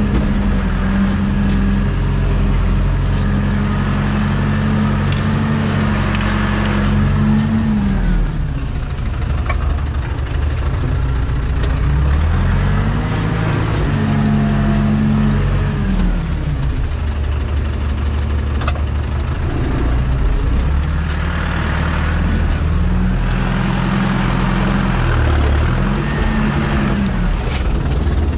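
Diesel engine of an LKT forestry skidder running in first gear, its revs dipping and rising several times as it works.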